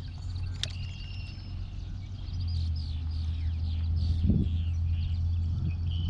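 Several birds chirping and calling, with short repeated notes, over a steady low rumble. A sharp click comes just under a second in, and a dull knock about four seconds in.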